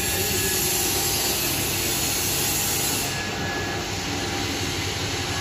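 Stainless steel spiral carcass pre-chiller running on test: its electric gear motor and chain drive turning the large auger, a steady mechanical running noise with a low hum and a hiss over it.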